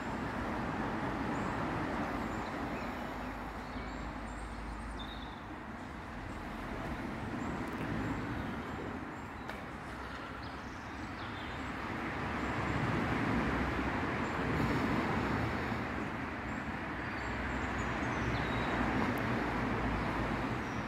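Road traffic rumbling, swelling and fading as vehicles pass, loudest about two-thirds of the way in and again near the end, with a few faint bird chirps above it.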